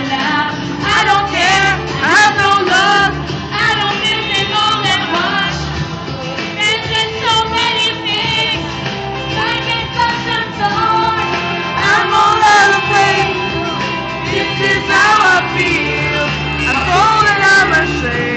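A pop song played on a sound system, with a woman singing over it.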